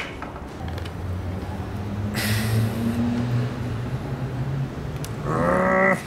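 Corded DeWalt electric drill motor running, a low hum that slowly rises in pitch, with a short hiss about two seconds in and a louder, higher whine near the end.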